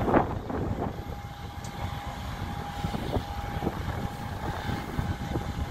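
Airport apron noise around a parked Boeing 737-800: a steady low rumble with a thin steady whine coming in about a second in, and a brief louder bump at the very start.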